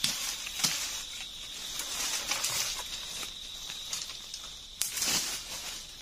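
Dry leaves and brush rustling and crackling as someone works through the forest floor by hand, with a few sharp snaps of twigs: one right at the start, one under a second in, one near the end. A steady high insect drone runs underneath.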